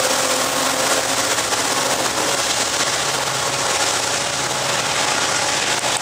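Steel wheels of loaded-style open-top ore hopper cars rolling past on the rails, a steady rushing rumble with no break.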